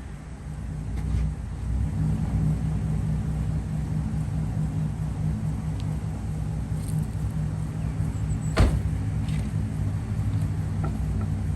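Car engine revving and holding high revs under a burnout attempt, with the failing transmission slipping instead of driving the wheels. The revs climb over the first couple of seconds, and a single sharp knock comes about three-quarters of the way through.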